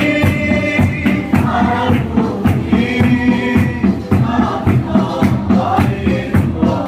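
A congregation singing a hymn together in chorus over a steady percussive beat.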